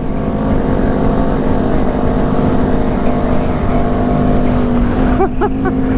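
Honda Grom's 125 cc single-cylinder four-stroke engine running steadily at speed in fourth gear, its pitch easing slightly near the end. Heavy wind buffeting the microphone underneath.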